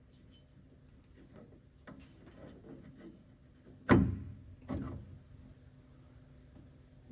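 Hands working the prop shaft's universal joint against the rear differential of a Land Rover Series III: light rubbing and small clicks, then a sharp metal knock about four seconds in and a lighter one just under a second later.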